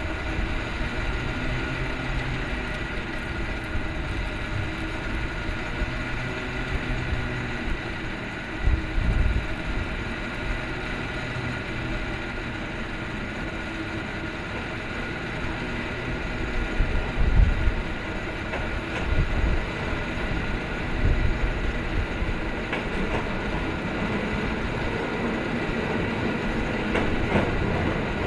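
San Francisco cable car climbing toward the listener on its rails: a steady whirring hum with several high ringing tones, broken by a few low thumps, the low rumble growing louder toward the end as the car draws near.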